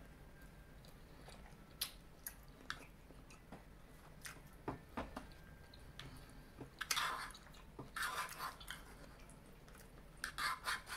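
Close-miked chewing of a mouthful of food, with louder smacking bursts about seven, eight and ten seconds in. A metal fork clicks and scrapes on the plate every second or so.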